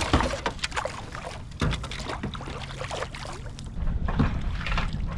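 Scattered knocks and clicks of handling in a kayak. Wind buffets the microphone more strongly from about four seconds in.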